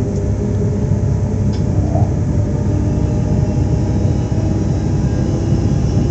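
Z 2N (Z 20500 series) electric multiple unit running: a steady low rumble with several faint humming tones above it that shift slightly in pitch.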